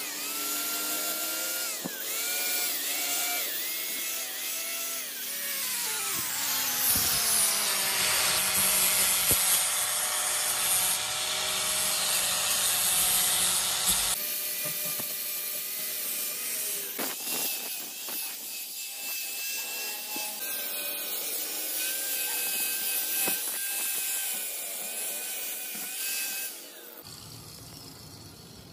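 Angle grinder with an abrasive disc grinding the teeth of a steel spiral bevel pinion gear. The motor's whine sags in pitch again and again as the disc bites, then slides down into a harsher grinding noise. After a sudden change it runs at a steadier whine, and it goes quieter near the end.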